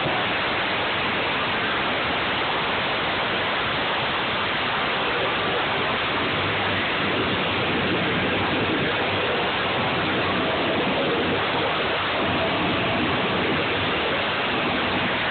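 Live metalcore band playing at full volume, captured on a phone microphone so overloaded that the music blurs into a steady, distorted roar with only faint low notes showing through.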